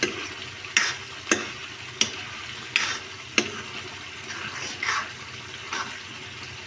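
Spatula scraping and stirring chicken liver masala in a black iron kadai: about eight scrapes over a steady sizzle of frying. This is the bhuna stage, the masala being stir-fried until it colours.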